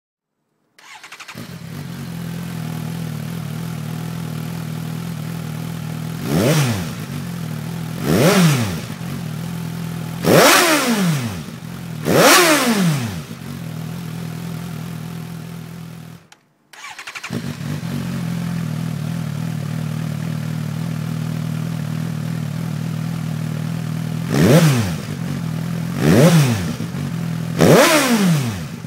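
Suzuki GSR750's inline-four engine through a G&G Oval aftermarket exhaust, idling with a very deep rumble. The throttle is blipped so the revs shoot up and fall straight back, four times in quick succession. After a brief break it idles again and is blipped three more times near the end.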